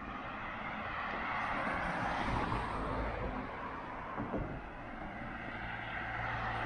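Road traffic: cars passing on a main street, tyre and engine noise swelling about two seconds in and again near the end.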